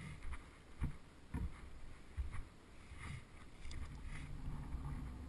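Footsteps through dry leaf litter and twigs on a woodland floor, with irregular low thumps and faint crackles picked up by the helmet camera's microphone.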